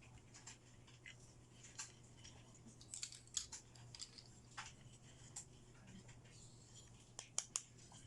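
Faint, scattered light clicks and taps of small plastic toy pieces being handled during an unboxing, with a few quick clicks in a row about three seconds in and again near the end, over a faint steady hum.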